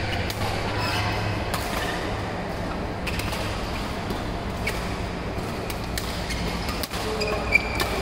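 Badminton rally: a shuttlecock struck by rackets with sharp cracks about every one to two seconds, over a steady low hum of the hall. A short squeak comes near the end.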